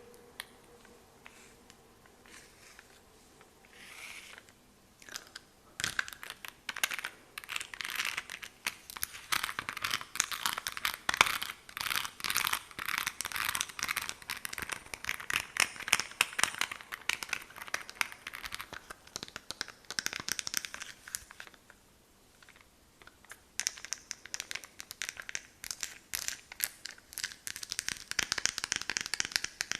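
Close-miked ASMR hand sounds: fingernails tapping and rubbing on hands in a dense stream of crisp, crackly clicks. The clicks are sparse for the first few seconds, pause briefly about three quarters of the way through, then resume.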